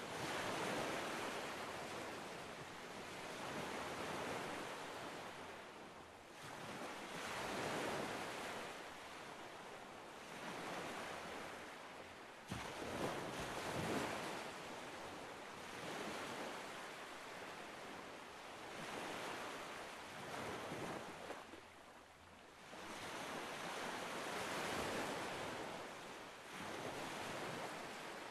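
Gentle sea waves washing onto the shore of a calm sea, each wash swelling and fading every three to four seconds.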